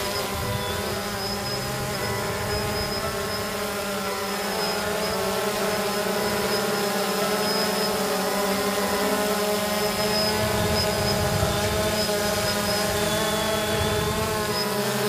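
Phantom 2 Vision quadcopter's four electric motors and propellers buzzing steadily in a hover, a whine of several even pitches.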